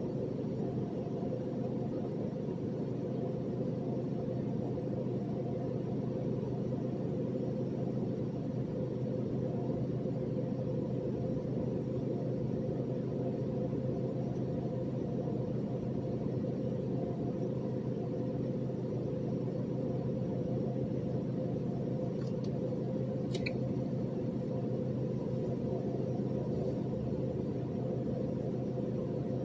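Dump truck under way, a steady engine and road rumble with a steady low hum, heard from inside the cab. A single short click comes near the end.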